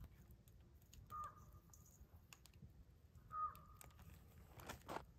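A bird calls twice, two short clear calls about two seconds apart, the second louder. Between them come faint small clicks and clinks of a metal measuring cup, and near the end a brief swish as dry ingredients are tipped into a stainless steel bowl.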